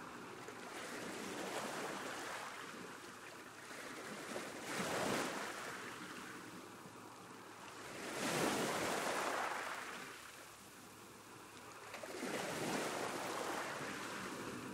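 Sea waves breaking on a shore, the surf swelling and falling back in four surges, the strongest about eight seconds in.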